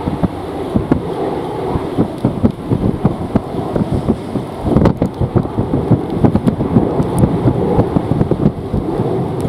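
Storm-force wind gusting and buffeting the microphone in an irregular string of low thumps, with heavy rain.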